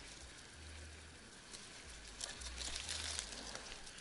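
Reeds and tall grass rustling and crackling as someone pushes through them; the crackle starts about two seconds in and gets louder.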